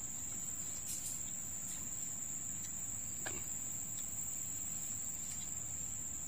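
Steady high-pitched drone of insects, one unbroken shrill tone that does not vary. There is a faint tap about three seconds in.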